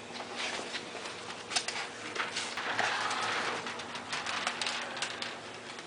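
Window tint film being applied by hand: a scattering of short, sharp clicks and scrapes, with a hiss lasting about a second and a half around the middle.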